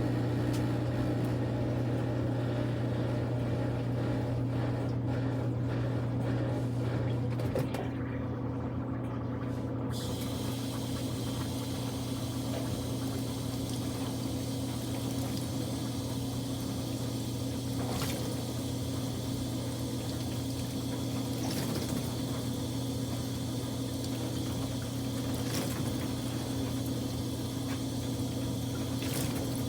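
Kuppet portable washing machine running with a steady motor hum. About ten seconds in, a steady rush of running water starts and continues alongside the hum.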